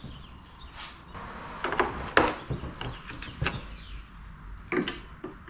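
Scattered clinks and knocks of hand tools against an air conditioner's sheet-metal housing while stubborn screws are worked loose, about half a dozen separate strikes.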